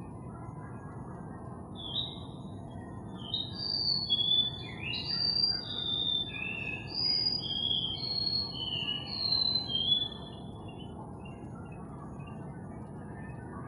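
A songbird singing a rapid run of short, clear whistled notes, each level or gently falling in pitch. The song starts about two seconds in and stops about ten seconds in.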